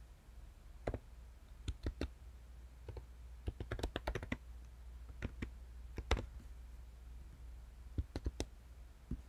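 Computer keyboard keys clicking as someone types, in irregular clusters of keystrokes with short pauses, over a faint steady low hum.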